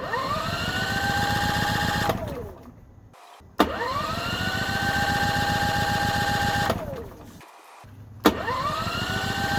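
Gasoline portable generator's electric starter cranking the engine three times, each try a couple of seconds long. Each starts with a click and a whine that rises and levels off over the engine's rapid chugging, then winds down without the engine firing: a no-start, caused by a broken spark plug boot.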